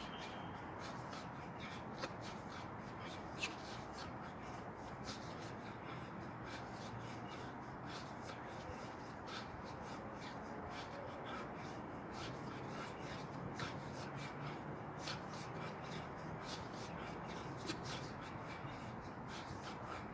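Feet shuffling and scuffing on a concrete floor during shadowboxing footwork, with irregular light ticks and a few sharper scuffs, over a steady background hiss.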